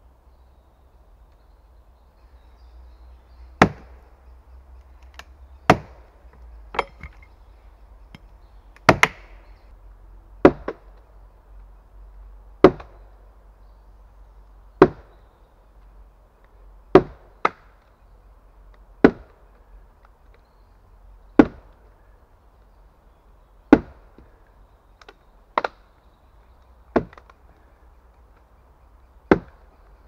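Handmade wooden mallet with a log head striking wooden pegs to drive them into a log. Single heavy knocks come about every two seconds, a few of them in quick double blows.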